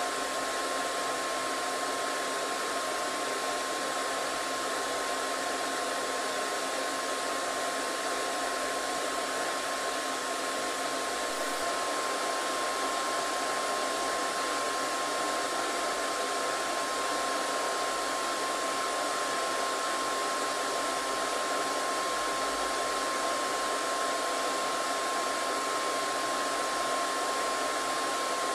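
Hair dryer running steadily: a constant rush of blown air with a steady whine from its motor.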